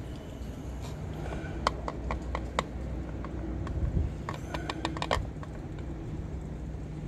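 Light clicks and taps of a plastic oil funnel knocking against the engine's oil filler opening as it is worked loose and lifted out. The clicks come in two quick bunches, starting about a second in and again about four seconds in, over a steady low hum.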